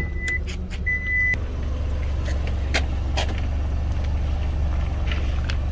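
Steady low rumble of a motor vehicle, with two short high-pitched beeps in the first second and a half and a few light clicks.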